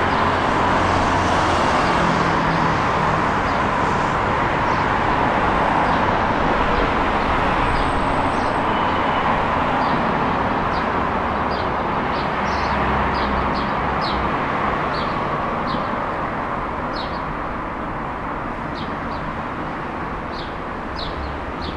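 Steady city road traffic: cars and buses passing, a continuous rumble and hiss that grows a little fainter near the end. Faint regular footsteps tick through it, about two a second.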